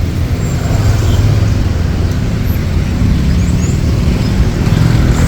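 Road traffic noise, with a motor vehicle's engine running close by as a steady low rumble.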